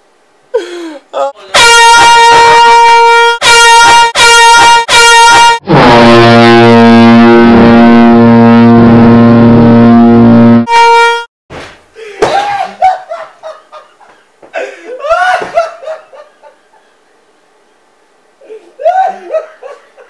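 Air horns blasting at full volume: four short high-pitched blasts, then a long lower-pitched blast of about five seconds, then one more short high blast. Shouting and laughter follow.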